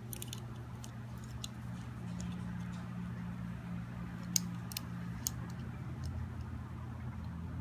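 A few small, sharp clicks of a die-cast model car's opening doors and metal body being handled, irregularly spaced and clearest about four and a half to five and a half seconds in, over a steady low hum.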